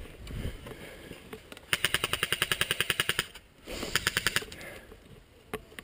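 Airsoft gun firing on full auto: a rapid, even string of shots, about a dozen a second, lasting a second and a half, followed by a second shorter burst and then a single shot near the end.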